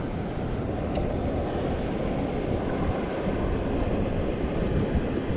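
Steady wind noise on the microphone, a low, even rumble, with a couple of faint clicks about a second in.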